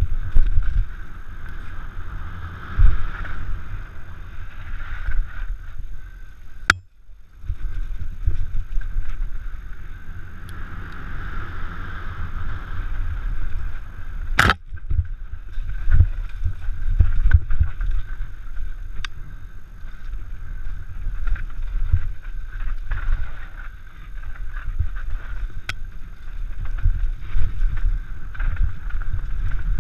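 Wind buffeting a helmet-mounted action camera's microphone during a fast mountain-bike descent on a dirt forest trail, with the bike's low thumps and rattling over bumps. Two sharp clicks stand out, about seven seconds in and about fourteen and a half seconds in.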